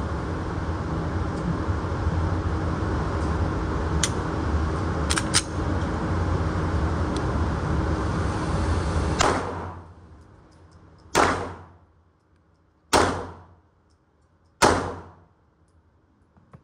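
Steady low rumble with a few light clicks, then four handgun shots at an indoor range starting about nine seconds in, under two seconds apart. Each shot trails off in echo, and the rumble drops away after the first.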